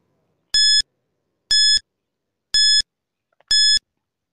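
Quiz countdown-timer sound effect: four short, high electronic beeps, one a second, counting down the seconds left to answer.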